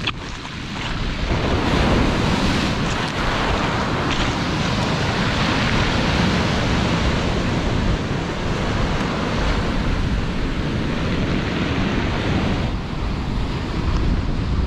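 Sea surf breaking and washing up the shore in a steady rush, swelling again about a second and a half in, with wind buffeting the microphone.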